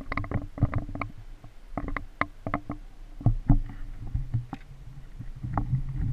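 Irregular knocks, taps and rustles from a GoPro camera being handled and bumped as the gear is put back on, over a low steady hum.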